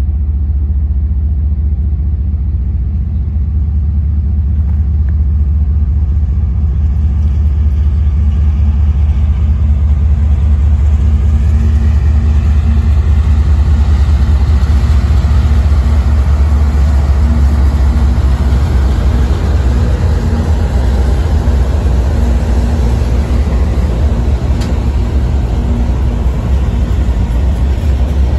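A CSX diesel-hauled manifest freight train rumbles in and passes: a heavy, steady low rumble from the locomotives. From about ten seconds in, the rolling of steel wheels on rail grows louder and stays as the hopper cars go by.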